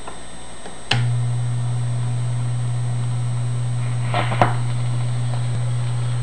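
1940 Silvertone 5849 wireless record player being set going: a click about a second in, then a steady low hum comes on. Around four seconds in, the steel-free needle of the tonearm scrapes and clicks as it is lowered onto the 78 rpm record.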